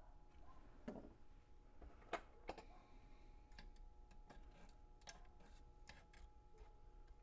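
Faint, scattered metal clicks and taps, the loudest two a little past two seconds in: a fork skimming dross off the top of molten lead in a melting pot and tapping against it.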